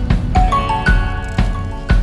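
Background music with a steady drum beat, about two strikes a second, under a melody of short stepping notes.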